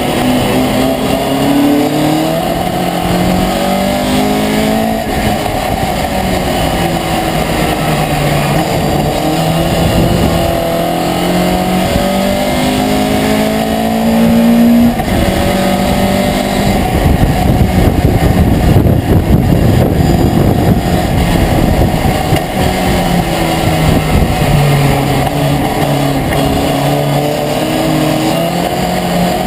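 Race pickup truck's engine heard from inside the cab, revving up through the gears in a series of rising climbs, each dropping back at a gear change or a lift for a corner. For several seconds past the middle, a louder rushing noise covers it.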